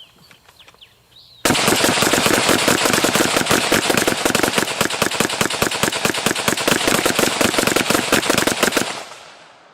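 Rifles, the AK-47 and AR-15, fired rapidly together in one long unbroken string of shots. The shooting starts about a second and a half in, stops abruptly near the end, and its echo dies away.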